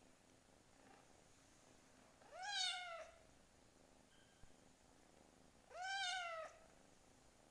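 Kitten meowing twice, two high calls about three seconds apart, each rising then falling in pitch.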